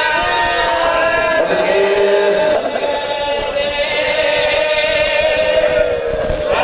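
A man's voice chanting a melodic majlis recitation into a microphone in long, held notes, two drawn-out phrases, the second sagging slightly in pitch at its end.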